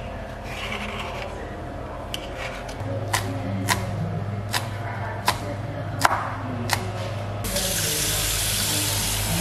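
A kitchen knife chopping spring onions on a wooden cutting board: about six sharp chops, irregularly spaced. Then, near the end, a tap runs full into a stainless steel pot.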